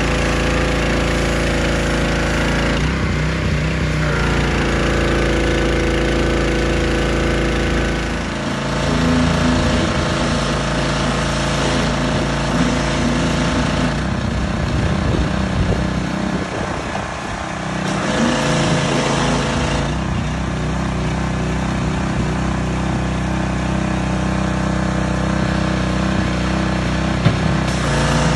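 A small engine running steadily and loudly, its sound dipping briefly about eight seconds in and again around seventeen seconds.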